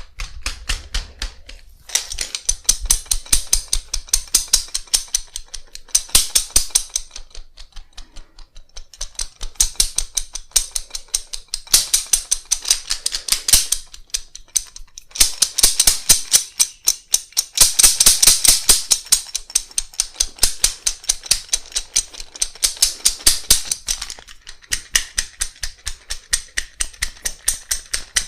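Rapid, even percussive massage strokes, hands tapping on the body at about four to five strikes a second, in runs of a few seconds with short pauses between.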